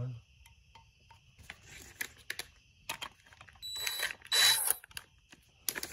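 Cordless drill-driver with a socket spinning a small nut down onto the ignition coil pack's terminal stud, securing a ring terminal: two short bursts of high motor whine, the second louder, after a few light clicks of parts being handled.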